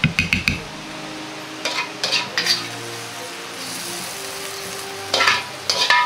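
Metal ladle scraping and clinking in a Chinese wok and against a plate as the stir-fry is scooped out, with a cluster of sharp ringing clanks near the end.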